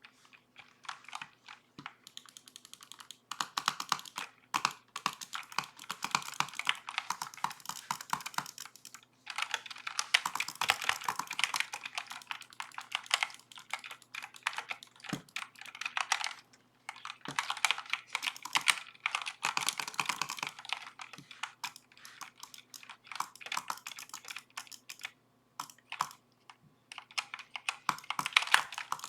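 Redragon K552 mechanical keyboard being typed on fast: runs of rapid key clacks broken by short pauses, picked up by a webcam microphone.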